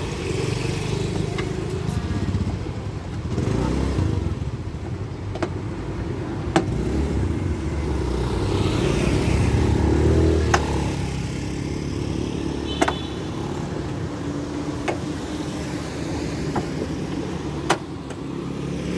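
Low motor-vehicle rumble that swells a few seconds in and then eases back, with sharp clicks scattered throughout.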